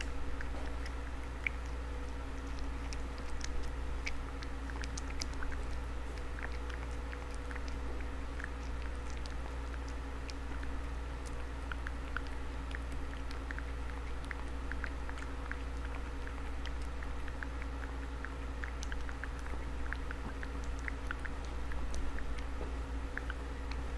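Tortoiseshell cat eating wet food from a paper bowl: a steady run of small, irregular chewing clicks and smacks, over a steady low hum.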